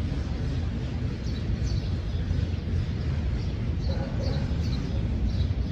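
Steady low outdoor rumble with several faint, short, high bird chirps over it.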